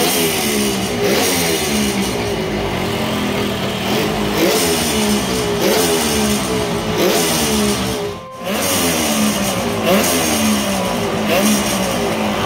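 Kawasaki S2 350's air-cooled three-cylinder two-stroke engine running on test, its pitch rising sharply with each throttle blip every second or two, then falling back. The sound breaks off briefly about eight seconds in.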